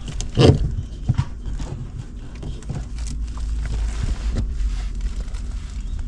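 Knocks and bumps from working on the air handler's drain pan in a cramped attic, the loudest about half a second in, followed by a few lighter clicks over a steady low rumble.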